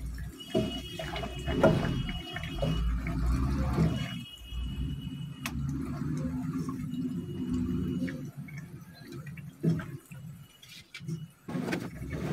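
A nylon spatula stirring pieces of catfish through adobo sauce in a pot on the stove: liquid sloshing, with irregular scrapes and knocks against the pot.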